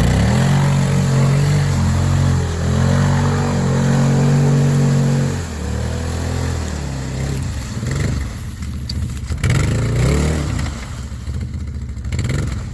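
ATV engine revving hard under load with its pitch rising and falling, as the quad struggles to get through a creek and is close to getting stuck. One long spell of revving is followed by a quieter stretch and a second, shorter burst of throttle from about eight seconds in.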